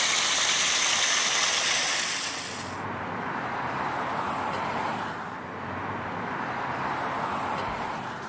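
Water pouring down a small garden waterfall, a steady rushing hiss. Nearly three seconds in it cuts off sharply to a quieter, duller outdoor background noise.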